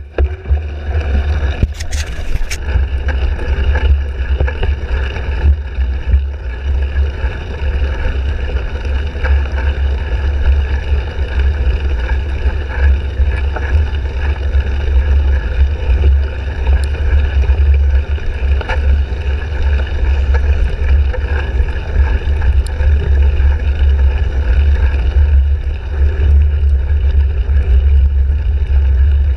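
Wind and ride noise on a cyclocross bike's handlebar-mounted action camera as the bike races along: a heavy, steady low rumble with a hiss over it, and a few sharp knocks about two seconds in.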